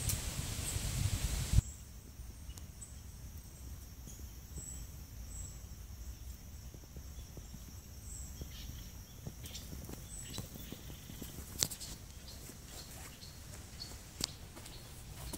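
Quiet outdoor ambience over loose limestone rock. A rustling hiss stops abruptly about a second and a half in. Then a faint steady high-pitched trill with a few short chirps carries on, and scattered sharp clicks and crunches of rock fragments underfoot come in the second half, two of them louder.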